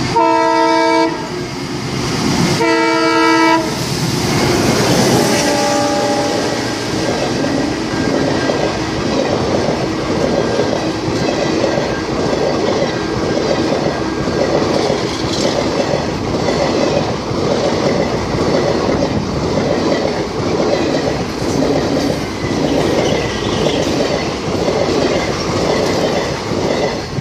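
Passenger train running through close by: two horn blasts of about a second each, then a steady, regular clickety-clack of the coaches' wheels over the rail joints as the carriages pass.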